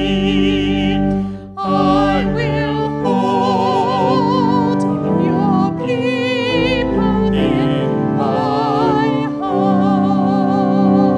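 Voices singing a hymn with vibrato over steady sustained accompaniment, with a brief break between phrases about a second and a half in.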